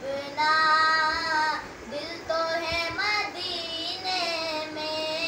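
A boy singing solo without accompaniment, holding long notes that waver slightly in pitch.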